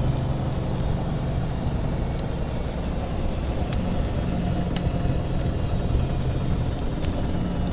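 Washing machine running with a steady low hum whose pitch shifts slightly now and then, mixed with a few faint, scattered crackles of a wood fire.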